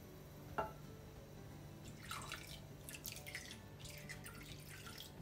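Faint trickling and dripping of a soy-sauce-based seasoning mix (soy sauce, sake, mirin, dashi) poured from a small metal cup onto rice and water in a clay pot, in a few short pours about two to five seconds in. A single light click comes just over half a second in.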